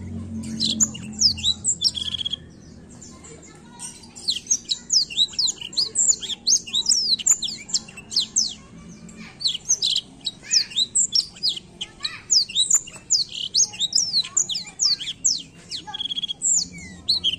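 Black-throated canary (blackthroat) singing a long, fast, rolling song of quick high whistled notes and trills that sweep downward. There is a short break a couple of seconds in, then the song runs on without a pause.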